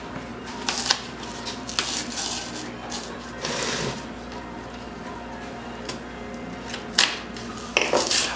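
Corrugated cardboard being picked at with an awl and its top layer torn and peeled away: scattered scratches and small clicks, a longer tear about three and a half seconds in, a sharp click near seven seconds and more scraping and tearing near the end.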